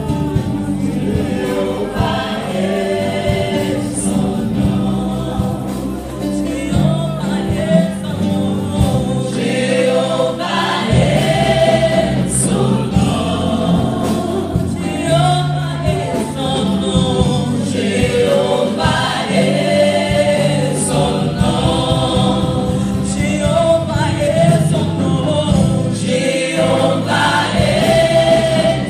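Gospel choir singing through microphones, voices holding long, bending notes, over live band accompaniment with electric bass and keyboard.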